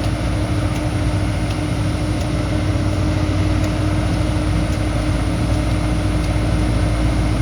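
Heavy diesel engine of an earthmoving machine running steadily with an even, low hum.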